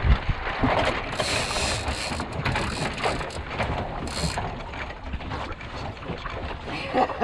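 Ratcheting sail-handling gear on a sailboat, clicking repeatedly as a line is worked, with a harsher spell of clicking about a second in and again about four seconds in.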